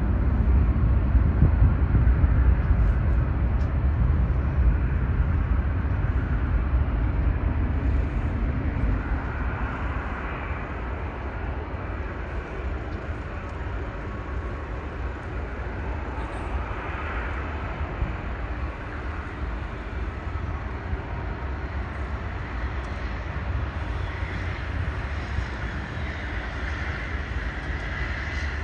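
Jet airliner engines rumbling, loudest at the start and fading over the first ten seconds or so to a steadier, lower rumble.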